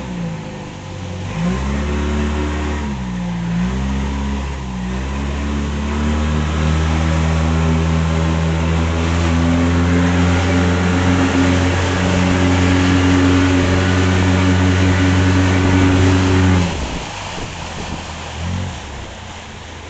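Motorboat engine revving up and down a few times, then running steadily at high revs, and throttling back sharply about three seconds before the end.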